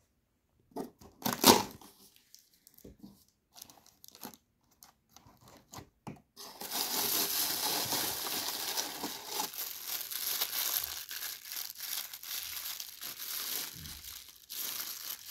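A few scattered knocks and taps of cardboard packaging, one louder about a second and a half in. Then, from about six seconds in, continuous crinkling and rustling of thin plastic wrapping as the wrapped accessories are handled and pulled from the box.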